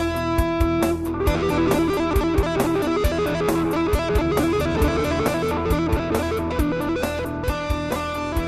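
Background music: electric guitar over a steady drum beat, with a busier run of changing guitar notes from about a second in until near the end.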